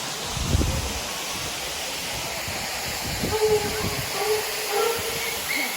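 Steady, even roar of Lula Falls' water, with a low thump about half a second in and a few short, faint high calls over it in the second half.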